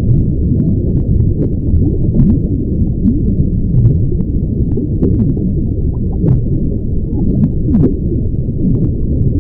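Water being drunk: a dense, muffled gurgling that runs on without pause, with small clicks scattered through it.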